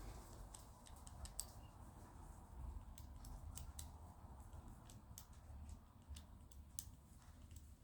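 Faint, irregular clicks of a Squire CP combination padlock's number wheels being turned by thumb while feeling for the wheel that bounces at the right number.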